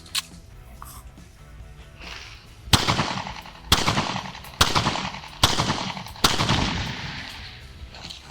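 Pistol firing five shots of handloaded 9mm ammunition (124-grain bullets) through a chronograph, spaced about a second apart, each shot followed by a long echoing tail. Two small clicks come just before.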